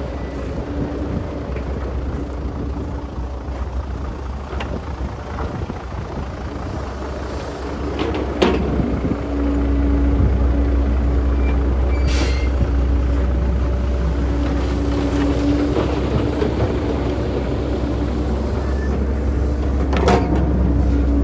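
Heavy diesel earthmoving machinery running, its engine getting louder about nine seconds in, with a few sharp knocks.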